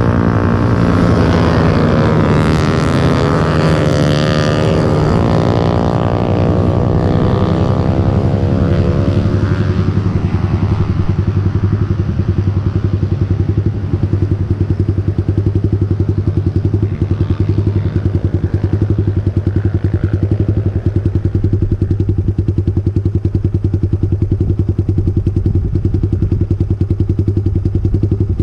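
Motorcycle engines: for the first ten seconds several machines can be heard on the track, their engine note falling as they go by and pull away, over a close motorcycle engine running at a steady speed that carries on alone to the end.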